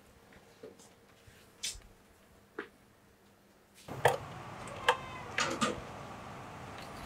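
A few faint ticks in a quiet room. About four seconds in, a steady outdoor hiss begins, with a handful of sharp clicks and clinks as hands handle parts under the open hood of a Toyota minivan; one click rings briefly like metal.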